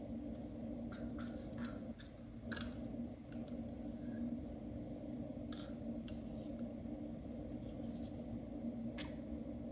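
Steady hum of a reef aquarium's running pumps and equipment, with a scattered handful of small clicks and taps over it.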